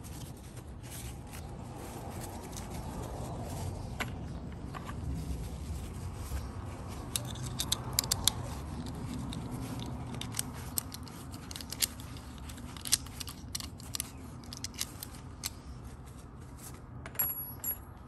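Dry paper towel rubbing over a freshly oiled antique three-lever cabinet lock, with many small metallic clicks and scrapes as the lock is handled and worked with its key, coming thicker in the second half.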